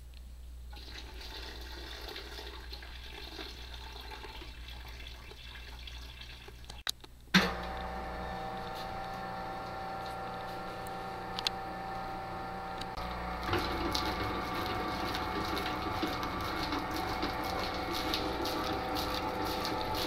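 Liquid being poured into a steel mixing bowl of flour. About seven seconds in, a commercial planetary stand mixer switches on with a click and runs with a steady motor hum, kneading bread dough. The hum gets louder about halfway through.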